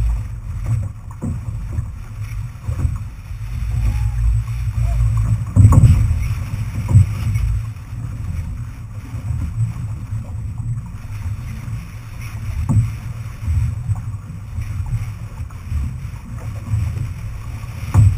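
Outrigger canoe under paddle, heard from a camera mounted on the hull: a steady low rumble of wind and water buffeting the mount, with a few sharp knocks scattered through.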